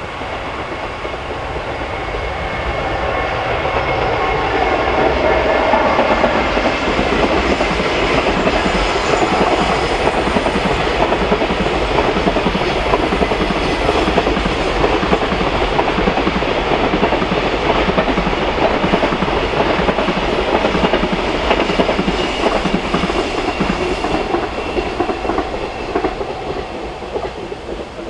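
Container freight train behind an electric locomotive rolling past: a steady rumble with the clickety-clack of wagon wheels over the rails. It grows louder over the first few seconds and fades near the end as the last wagons go by.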